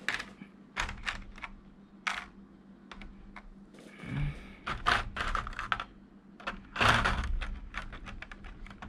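Clear plastic blister tray clicking and crackling as a hand pries a blue plastic effect part out of it: many short sharp clicks, with dull thumps about four and seven seconds in.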